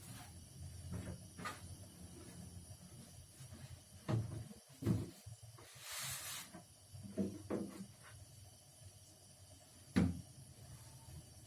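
A few hard knocks and clunks of objects being handled, with a short hiss about six seconds in.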